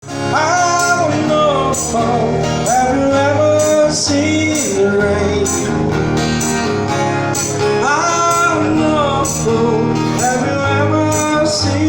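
Classic rock band intro: a guitar-led melody over bass and drums with a steady beat, fading in at the very start.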